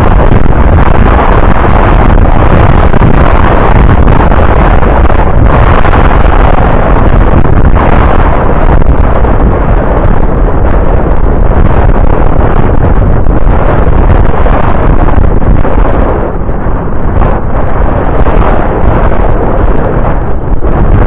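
Loud, continuous wind buffeting on the microphone of a camera on a moving bicycle: a dense, heavy rumble that eases slightly about three-quarters of the way through.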